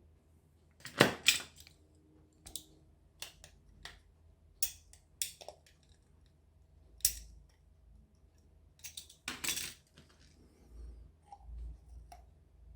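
Irregular sharp clicks, taps and short scrapes of a tool working at the head of a small 9 LED torch, prying at the stuck lens and LED array. The loudest knocks come about a second in and again near nine seconds.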